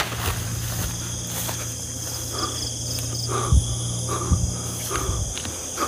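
Steady chorus of crickets and other night insects, with a low hum underneath that stops near the end. A few soft thumps come in the second half.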